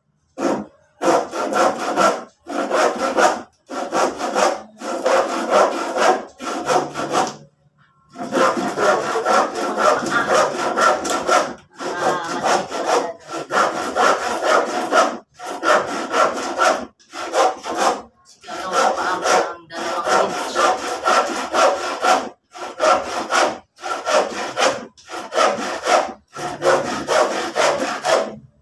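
Hand saw cutting through a wooden board, in runs of rasping back-and-forth strokes broken by short pauses.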